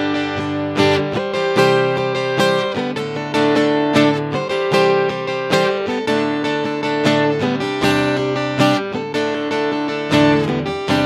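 Guitar chords strummed in a steady rhythm through a Roland GR-55 guitar synthesizer, with sustained tones held under the strums: an instrumental passage of a worship song.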